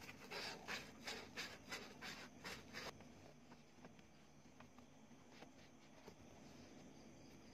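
Sandpaper rubbing back and forth on the edge of a freshly drilled hole in a plastic dashboard part, smoothing it: faint scratchy strokes about three a second that stop about three seconds in, then near silence.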